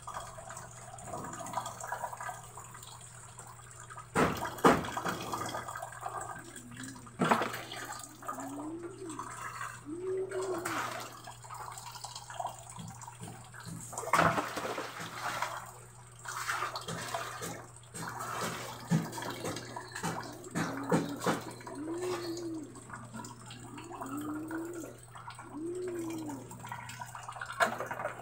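Heavy rain falling and running off, water splashing and dripping onto a concrete floor with irregular sharp splats and short pitched plops every few seconds.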